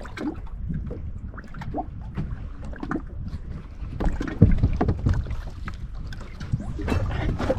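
Wind rumbling on the microphone aboard a small fishing boat, with scattered knocks and a cluster of louder thumps about halfway through.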